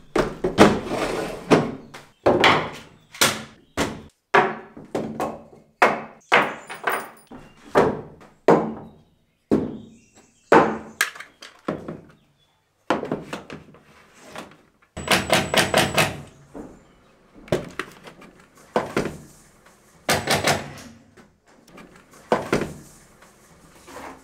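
A long string of separate knocks and clatters from gear being handled: a plastic crate and its contents shuffled, and hard-shell forestry helmets bumped against a wooden plank wall as they are hung on hooks. About fifteen seconds in comes a quick run of several sharp knocks.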